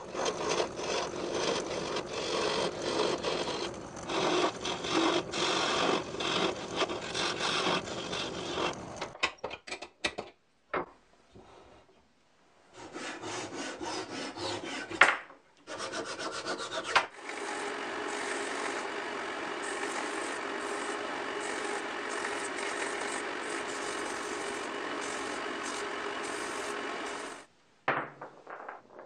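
A wooden ball being sanded: sandpaper scratching against the ball as it spins on the lathe, uneven and in stop-start stretches. From about two-thirds of the way in, a belt sander runs steadily with the ball pressed to its belt, then cuts off shortly before the end.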